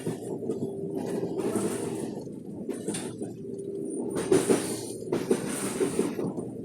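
CPTM Série 8000 electric commuter train heard on board: a steady running hum with a faint tone, broken by several short hissing bursts, the loudest about four and five seconds in.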